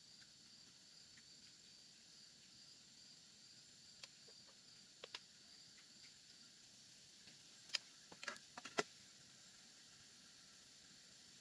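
Near silence with a faint steady hiss of night insects. A few light clicks and taps come about four and five seconds in, then a short cluster near nine seconds: spoon and dish sounds while eating.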